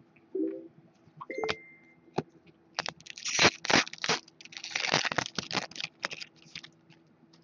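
A trading card pack's wrapper being torn open and crinkled by hand, in a series of crackly bursts that start about three seconds in.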